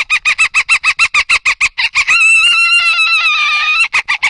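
A boy imitating a dolphin with his voice: a rapid run of short, rising chirps at about six a second, then a long, high, slightly wavering whistle, then a few quick chirps again near the end.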